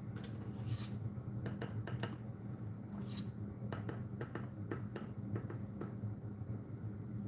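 Small metal spoon clicking and tapping against the rim of a plastic jar of powdered dye, with a few soft scrapes as it scoops: about a dozen light ticks, some in quick pairs, over a steady low hum.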